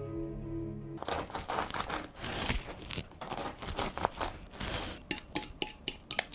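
A soft held musical chord for about the first second, then a utensil mashing and mixing tuna pâté in a glass container: wet scraping strokes, turning to quick sharp taps against the glass near the end.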